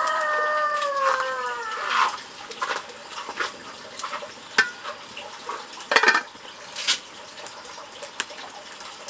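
A chicken's drawn-out call, sliding down in pitch and fading out about two seconds in. Scattered light clicks and knocks follow, with a sharper knock about six seconds in.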